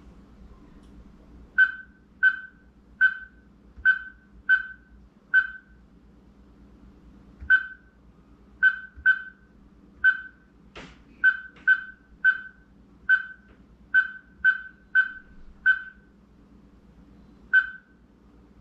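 Keypad of a CIEPOJIT electronic deadbolt beeping while it is programmed with codes and fingerprints: about nineteen short, identical high beeps at an uneven, key-press pace. There is one sharp click a little past the middle.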